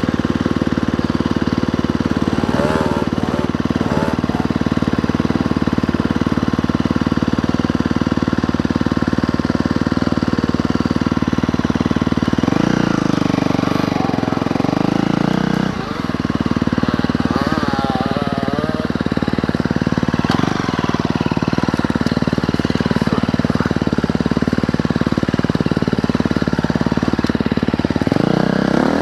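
Dirt bike engine running steadily at trail-riding revs, the note shifting for a few seconds around the middle before settling back.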